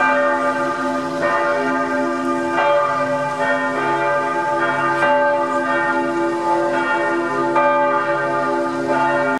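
Church bells ringing: several bells swinging and striking at irregular moments, their tones overlapping and ringing on continuously.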